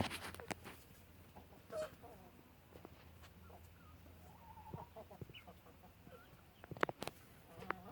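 Backyard poultry clucking softly in short, scattered calls, with a couple of sharp taps near the end.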